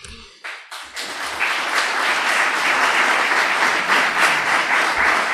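Audience applauding, the clapping building up about a second in and then holding steady.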